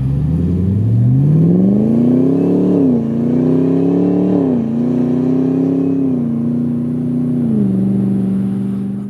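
Land Rover Defender with a supercharged GM LT4 V8 pulling away and accelerating hard. The engine note climbs in pitch, drops at an upshift about three seconds in, climbs again and drops at a second shift, then steps down twice more and runs steady. It cuts off suddenly at the end.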